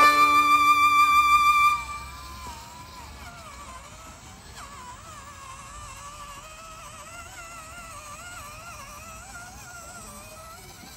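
Fiddle music that stops about two seconds in, followed by the high whine of a HobbyPlus CR18P EVO Pro RC crawler's small electric motor and gears, its pitch wavering up and down.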